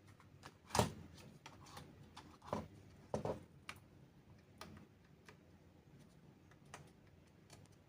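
Scattered small clicks and taps of plastic and metal computer parts being handled and pressed into place, the loudest about a second in and a cluster around three seconds.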